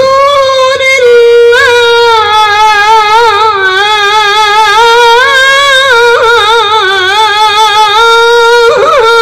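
A woman's Qur'an recitation (tilawah) in a high voice, amplified through a PA loudspeaker system. It is one long unbroken phrase, held on high notes with wavering melismatic ornaments and a quick flourish near the end.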